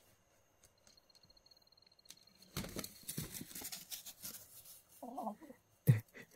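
Rustling and scuffling for a couple of seconds, then a brief low chicken call about five seconds in, as a rooster guards his hen from a cat. A sharp knock follows near the end and is the loudest sound.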